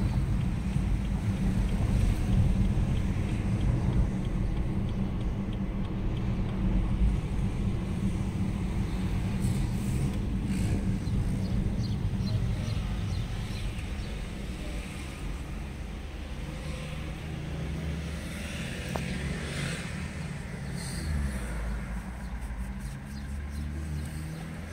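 Car engine and tyre-on-road noise heard from inside the cabin while driving in town: a steady low rumble that eases and grows quieter as the car slows down, leaving a low engine hum near the end.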